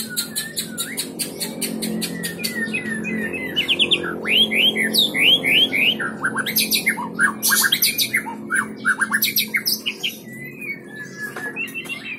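White-rumped shama singing: a rapid run of clicking notes, then varied whistles and a fast series of steep down-slurred notes in the middle, tailing off into softer whistles near the end.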